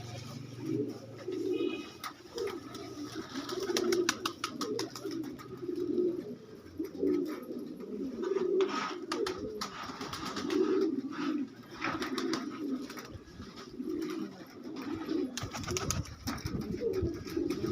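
Pigeons cooing over and over, low throaty calls about once a second, with scattered sharp clicks in the middle of the stretch.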